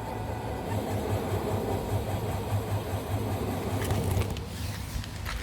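DS 7 Crossback diesel engine running with a pulsing low hum, the strange sound that persists after an AdBlue error warning, which the display puts down to an exhaust-system fault. The sound dies away about four seconds in, followed by a few clicks.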